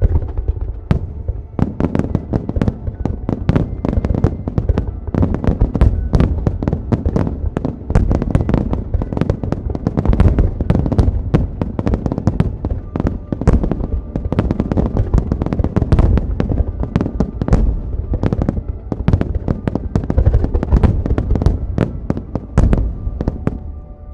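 Aerial firework shells exploding in a dense barrage: many sharp bangs and crackles in quick succession without a break, starting about a second in, with music faintly underneath.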